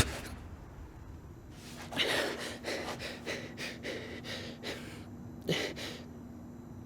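A person's gasps and short breaths, coming in a few separate bursts with the loudest about two seconds in and a pair near the end, over a faint steady hum.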